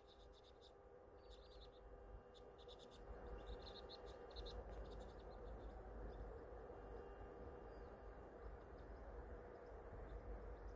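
Faint, rapid high-pitched chirping of small birds, in quick runs through the first half, over a low steady rumble.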